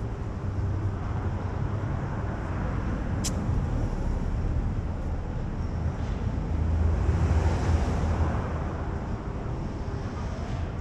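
Outdoor city ambience at night: a steady low rumble of traffic and wind, swelling for about two seconds past the middle, with one sharp click about a third of the way in.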